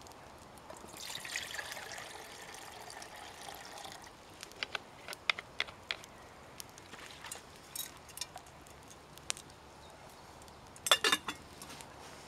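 Water poured from a bottle into a stainless steel camping mug for about three seconds, then small clicks and taps as the bottle is handled and capped. A sharp metallic clatter near the end is the loudest sound.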